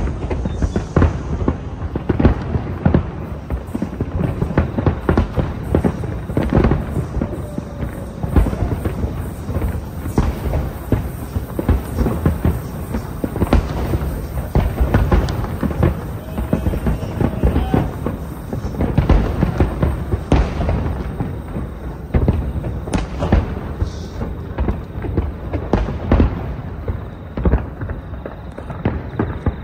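Fireworks display: a continuous barrage of bangs and booms, several a second.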